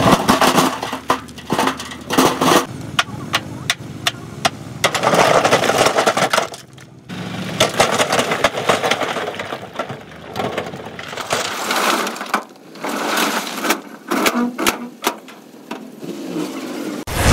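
Rock and stone sliding and crashing out of a tipping dump truck bed: a run of sharp clattering knocks and longer rumbling rock slides. A truck engine runs underneath in places.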